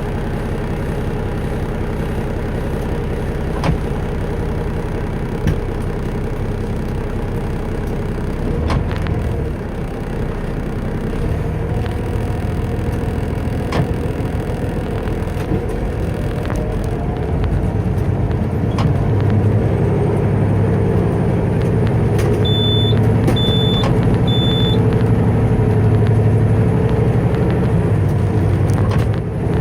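Heavy truck's diesel engine heard from inside the cab while driving, running steadily and growing louder about two-thirds of the way through as it pulls harder. Three short high beeps sound a little after that, plus a few light clicks.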